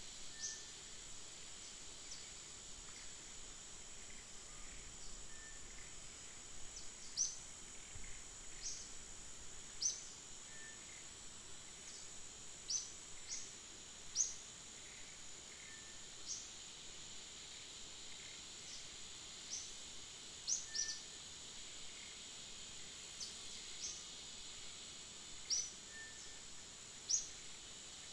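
Forest ambience: a steady high insect drone with many short, sharp, downward-sweeping bird chirps scattered irregularly over it, and a faint short note about every five seconds.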